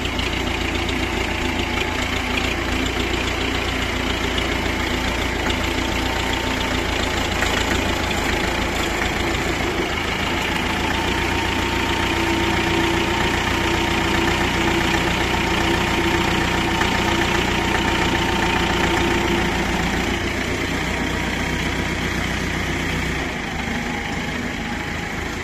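Soviet T-40AM tractor's air-cooled four-cylinder diesel running steadily as the tractor drives along a rutted off-road track, its engine note holding nearly constant.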